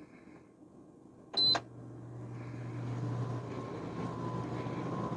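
Craftsman 3300i inverter generator engine speeding up and growing steadily louder as a small heater is added to its load. About a second and a half in there is a short, sharp beep, and a low hum starts with it.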